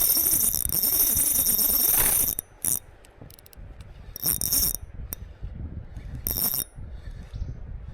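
Ultralight spinning reel (KastKing Kestrel 1000) working while a smallmouth bass is fought: a steady mechanical whirring for the first two and a half seconds, then three short bursts of it, stop and start.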